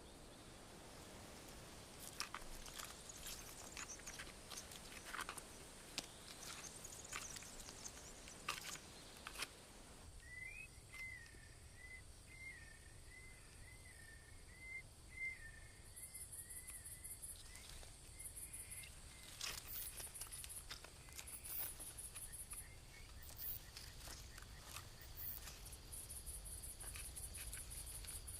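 Faint evening woodland ambience: scattered light rustles and crackles in vegetation, a wavering call for several seconds near the middle, then crickets chirping in quick high pulses through the second half.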